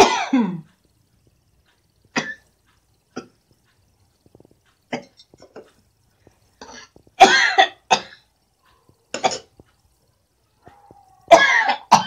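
A woman coughing and sneezing in short fits into a tissue, set off by smoke from chillies burnt in hot oil. The bursts come irregularly, and the loudest fits fall about seven seconds in and near the end, the last one led by a short held 'ah'.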